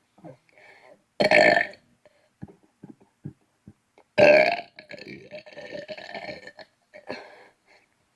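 A person burping deliberately: a short loud burp about a second in, then a longer one about four seconds in that trails off over two more seconds, and a smaller burp near the end.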